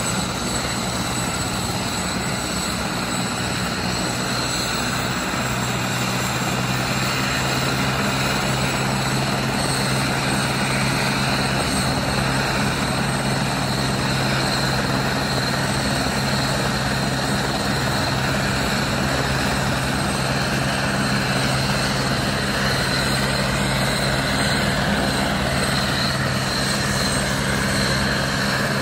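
Airbus AS355N twin-engine helicopter running on the ground with its main rotor turning: a steady turbine whine over a low hum, growing slowly louder, with a low tone stepping up about five seconds in.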